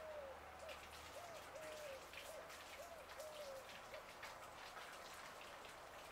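A bird repeating a short hooting call, about two notes a second, stopping about four seconds in, with faint scattered ticking and crackling.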